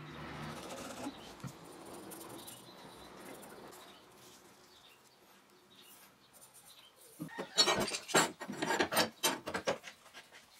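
Hands working a steel bar on a wooden bench: faint rubbing at first, then, about seven seconds in, a quick run of scrapes and clicks as the bar and a clamp are handled.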